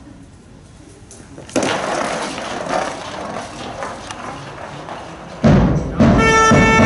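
An ice stock lands on the paved lane with a knock about a second and a half in and slides along it with a grainy scraping. About five and a half seconds in, loud cheering and shouting breaks out, joined by a horn blowing one steady note for about a second and a half.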